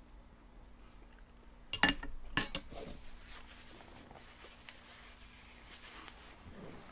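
Cutlery clinking against a plate twice in quick succession about two seconds in, as a bite of food is taken, with faint eating sounds after.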